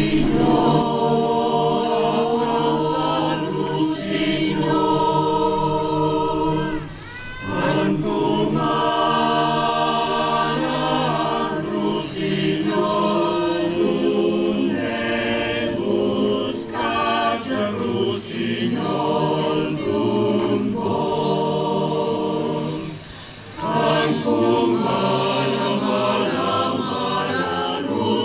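Mixed choir singing in harmony, accompanied by an electric keyboard. The singing pauses briefly twice between phrases.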